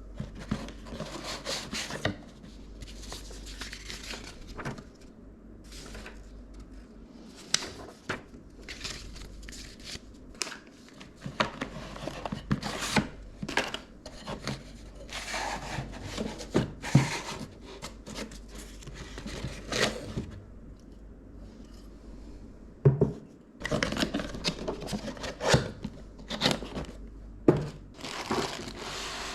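Computer-part packaging being handled and opened: irregular crinkling, rustling and tearing, with a few sharp knocks.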